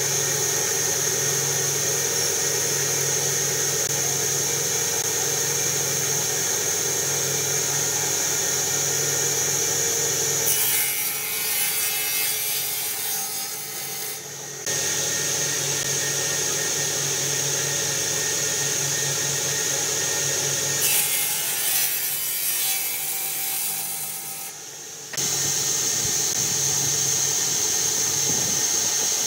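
Sliding-table circular saw running steadily with a high whine, then ripping through a wooden board twice, about ten seconds in and again about twenty seconds in. Each cut is a rough, rasping noise that stops suddenly as the steady whine returns.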